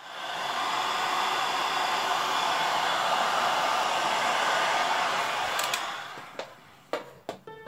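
Electric hair dryer blowing steadily, then switched off about six seconds in and winding down. A few light clicks of handled parts or tools follow near the end.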